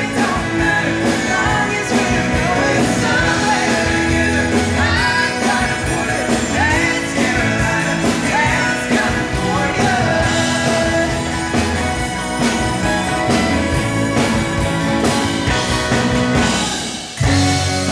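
Up-tempo country-rock song with lead singing over a band with drums. About 17 seconds in the song breaks off briefly and the next song starts with a heavy low bass.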